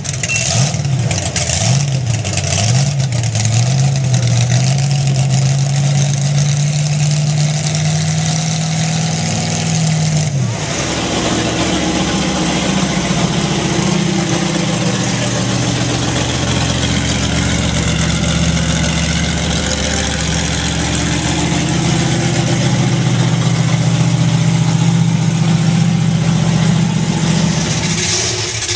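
A monster truck's large engine revving: a few quick up-and-down blips, then revs climbing slowly for several seconds. It cuts off abruptly about ten seconds in, and from there a monster truck engine runs steadily with a slow rise and fall in revs.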